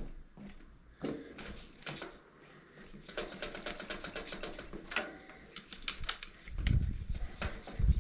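2016 RockShox Pike RCT3 suspension fork being worked, giving off irregular clicking and rattling noises. Heavier low thumps come in from about two-thirds of the way through.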